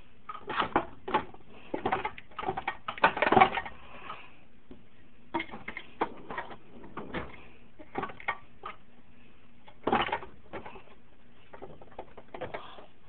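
Metal hand tools clinking and clattering as they are handled and shifted in a toolbox drawer, in irregular bursts. The loudest clatter comes about three seconds in, with another near ten seconds.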